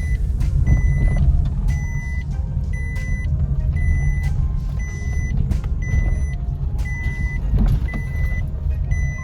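Maruti WagonR car driving slowly over a rough off-road track: a steady low engine and road rumble with scattered knocks and jolts. A short high electronic beep repeats about every 0.8 seconds.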